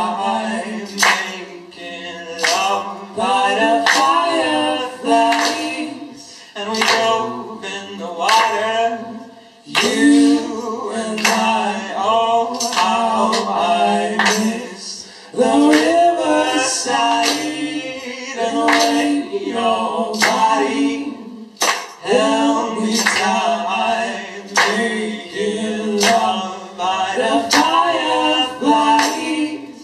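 Band members singing a cappella, keeping time with steady hand claps about once a second.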